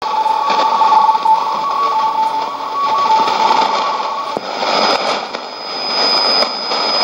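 Sony ICF-2001D shortwave receiver in AM giving hiss and static on a weak shortwave signal, with faint broken tones underneath. About four and a half seconds in it is retuned from 5995 to 9840 kHz, where the hiss is denser and a steady high whistle sounds.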